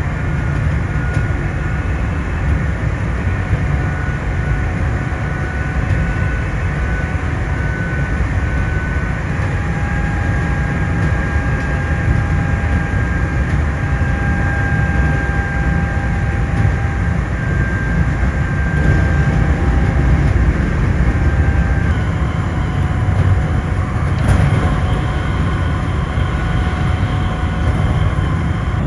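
Electric commuter train running along the line, heard from inside: a steady rumble of wheels on rails with a high, steady whine whose pitch shifts about two-thirds of the way through.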